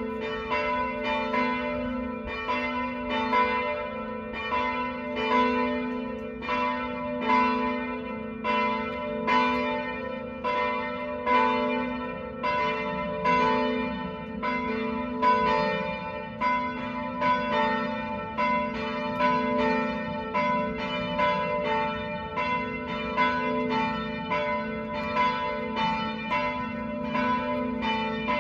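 Church tower bells ringing in full peal (plenum), all the bells swinging together in a steady, unbroken run of overlapping strikes, about two to three a second: the ringing that calls the parish to Sunday Mass.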